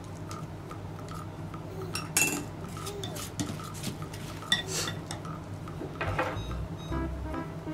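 Kitchen utensils clinking and scraping against dishes, with a few sharp clinks about two, four and a half, and six seconds in.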